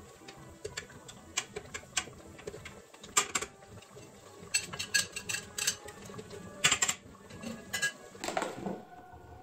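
Kitchen tongs clinking and tapping against the inner pot of a slow cooker and a plate while braised short ribs are lifted out: a scatter of sharp, irregular clicks, loudest about three seconds in and again near seven seconds.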